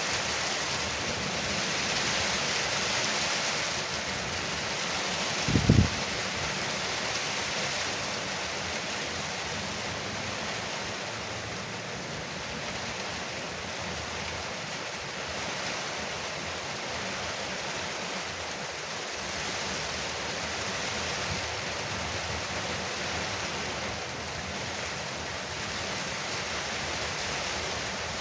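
Heavy rain drumming steadily on a porch roof, an even hiss. One brief low thump about five and a half seconds in.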